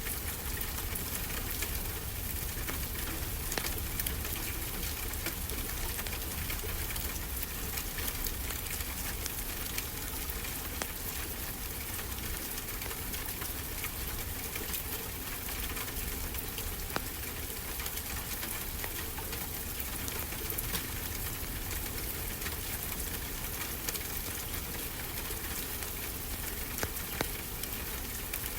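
Wood fire crackling with frequent small pops over a steady low rush of ocean surf.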